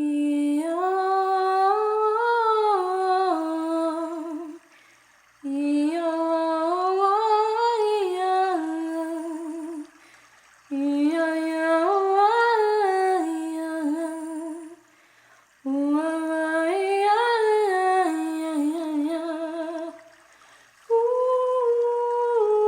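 A voice humming a slow wordless chant: four phrases, each gliding up and back down in pitch and ending on a wavering note, with short pauses between them. Near the end a new, higher note begins and is held.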